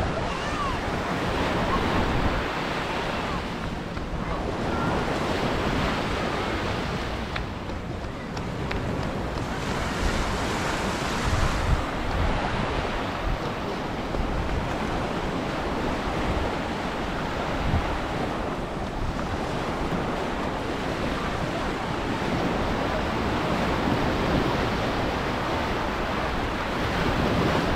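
Sea waves washing onto a beach in a steady noise that swells and eases every few seconds, with wind buffeting the microphone.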